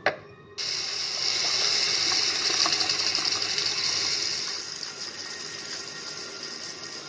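A click, then water suddenly starts running in a steady rush, easing a little after about four seconds.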